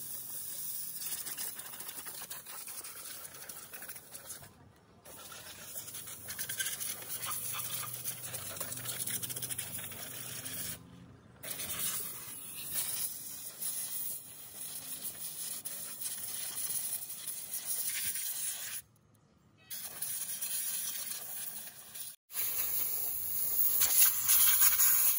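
Hissing, scrubbing cleaning noise as a motorcycle's chain and engine are worked over with a hand cleaning tool, broken by several abrupt cuts.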